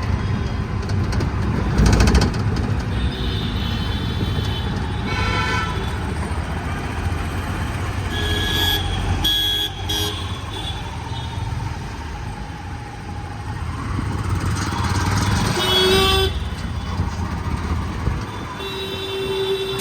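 Road traffic running with a steady low engine rumble, and vehicle horns honking several times over it, some short toots and some held longer.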